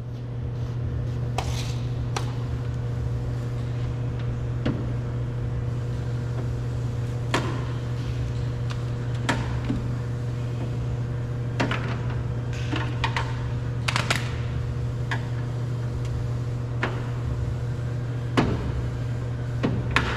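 Scattered sharp clicks and knocks of hand tools prying and working on a car door's metal and plastic, over a steady low hum.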